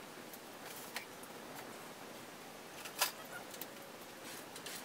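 Quiet room tone with a few faint clicks and knocks as someone moves about and handles things, one a little louder about three seconds in and a sharp click at the very end.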